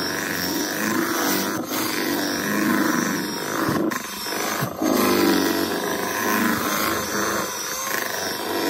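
Electric hand mixer running at high speed, its twin beaters whisking thick banana cake batter in a metal bowl. The motor hum is steady, its pitch shifting as the beaters work through the batter.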